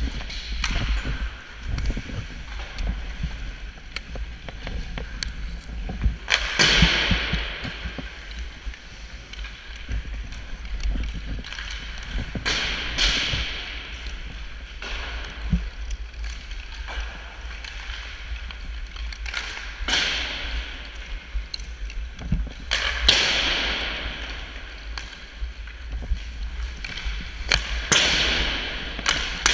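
Sled hockey on ice: sled blades hissing over the ice and stick picks clicking and digging in, with about six louder scraping swooshes of ice a few seconds apart. A constant low rumble sits under it all.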